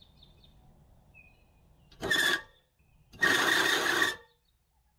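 36V electric scooter motor driving the reel mower's blades through a chain, run in two short bursts on the thumb throttle: a brief one about two seconds in and a longer one of about a second just after, each a steady whirring whine that starts and stops abruptly.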